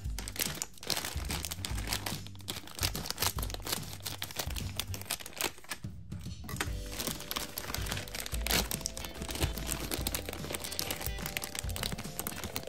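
Crinkly plastic marshmallow bag rustling and crackling as it is handled and opened, over background music.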